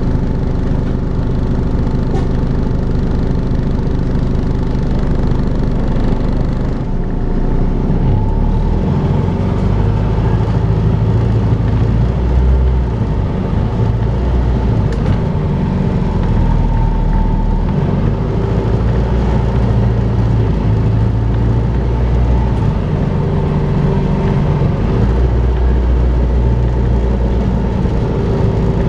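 Volvo B5LH hybrid double-decker bus running under way, its engine note stepping up and down with load under a steady whirring whine, the vacuum-cleaner-like 'hoovering' sound these buses make.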